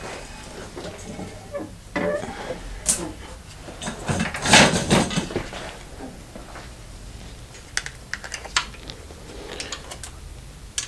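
Handling noise: scattered small clicks and knocks, with a louder rustling scrape about four to five seconds in and a quick run of clicks near the eight-second mark.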